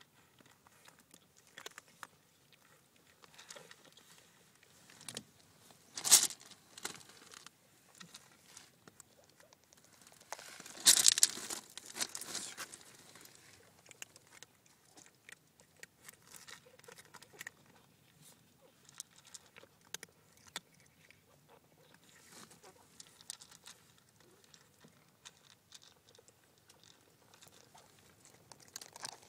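Cats crunching dry kibble close to the microphone: irregular small clicks and crackles. Fur brushes and rubs against the phone in two loud scratchy bursts, about six and about eleven seconds in.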